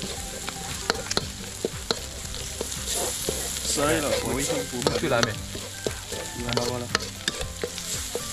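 A metal spoon stirring and scraping a spice paste around a wok, with many quick clicks and scrapes of metal on the pan over a steady sizzle of the paste frying in oil.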